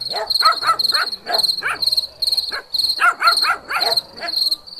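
A dog barking in two quick runs of short calls, the first at the start and the second about three seconds in, over the steady chirping of crickets.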